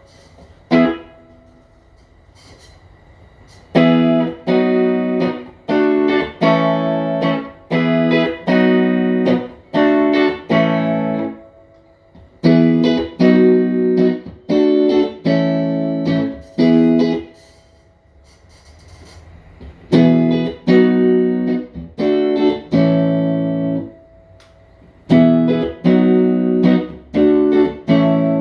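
Fender Player Plus Telecaster played clean through a Fender Tone Master Super Reverb amp: phrases of chords struck about twice a second, each ringing and dying away, with short pauses between the phrases.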